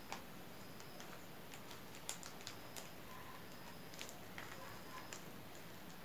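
Faint, scattered soft clicks and crinkles, about half a dozen, from fingers folding a very thin roti crepe around strands of spun-sugar floss on a plate.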